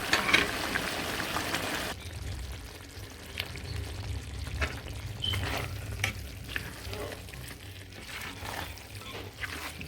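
A pot of curried bora and chicken sizzles for about two seconds, then stops suddenly. After that come quieter, scattered scrapes and clinks of a spoon stirring in the pot.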